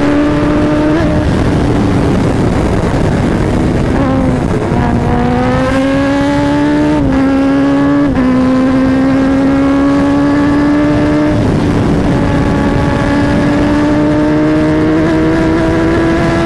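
Superbike engine pulling at very high speed, well over 200 km/h, over a rush of wind. The engine note dips about four seconds in, steps up and then drops sharply about eight seconds in, and climbs steadily after that as the bike accelerates.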